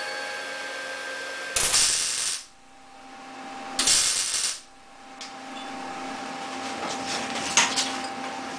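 Welding arc on sheet-metal body panels: two short bursts of crackling arc noise, each under a second and about two seconds apart, as the new kick panel and door pillar patch are tack-welded in.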